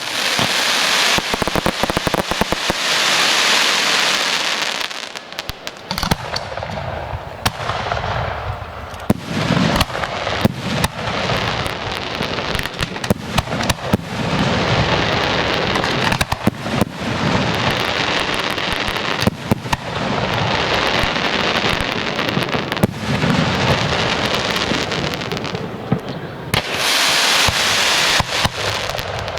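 Fireworks display. A dense crackling hiss opens the stretch and returns near the end, and in between come many sharp bangs and low booms from bursting shells and cakes.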